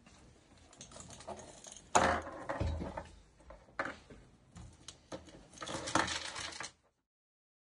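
Gloved hands unfolding a cloth bundle on a tabletop: rustling and small metal objects clinking and clattering against each other and the table. A sharper knock comes about two seconds in and a burst of clinks around six seconds, then the sound cuts off suddenly.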